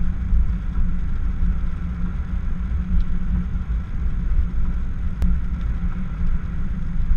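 Steady low rumble of a car's engine and tyres on a wet road, heard from inside the cabin, with a faint click about five seconds in.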